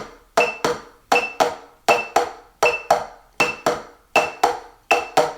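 Heavy marching drumsticks striking a rubber practice pad with both hands in unison, playing skips: two strokes in quick succession, repeated about 80 times a minute, about seven pairs in all. A short high beep, like a metronome click, sounds with the first stroke of each pair.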